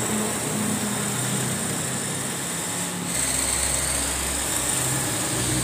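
Radio-controlled drift car running and sliding on a tiled floor: a steady high motor whine over a low hum. A low rumble joins about three seconds in.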